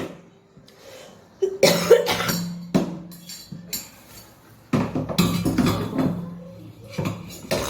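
A woman coughing deliberately in several separate fits with quiet pauses between, hacking to bring up phlegm.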